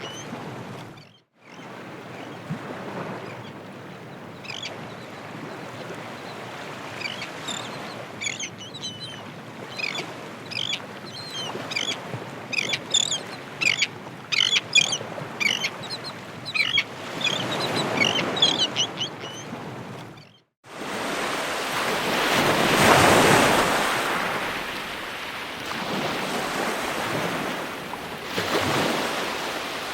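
Ocean waves washing ashore, with many short, high bird chirps over the surf through the first two-thirds. A brief drop to silence about two-thirds of the way through, then louder surf with waves swelling and breaking about every six seconds.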